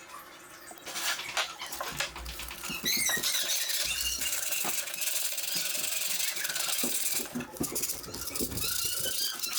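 Rapid scraping and scrubbing strokes with scattered clicks and high squeaks, typical of sanding the rusty steel blade of a Disston D-23 handsaw.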